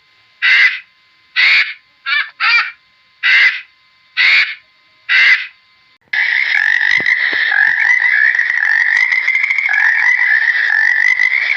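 Animal calls: eight short, separate calls in the first six seconds, then, from about six seconds in, a dense continuous chorus of calls.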